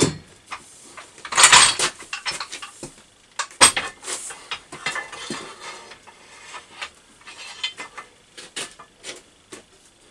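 Metal clanking and rattling as a bent steel tube is taken out of a pipe bender's former: a loud clatter about a second and a half in, a sharp knock a little after three and a half seconds, then smaller irregular clicks and taps.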